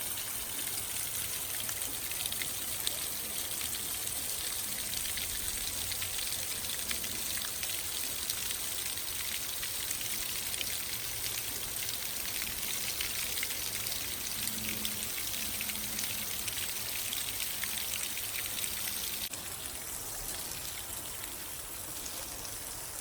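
Creek water rushing and splashing over rocks in a strong current, a steady running noise that drops a little about 19 seconds in.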